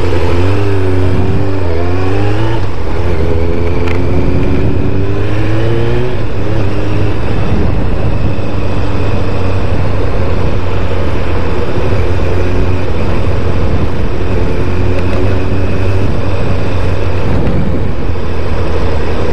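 1998 Kawasaki Ninja ZX-7R's 750 cc inline-four engine running under way. Its pitch rises twice in the first six seconds as it pulls away and accelerates, then it settles into a steadier cruise.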